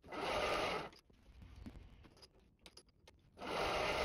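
Small twist drill cutting into a part held in a milling-machine vise, heard in two short bursts of about a second each, roughly three seconds apart, with a few faint clicks between.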